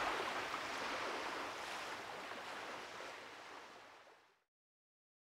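Ocean surf washing on a beach, fading out steadily until it is gone about four seconds in.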